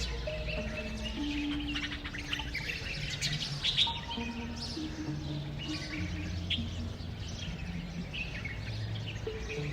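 Birds chirping over soft background music of slow, held notes that change pitch every second or so.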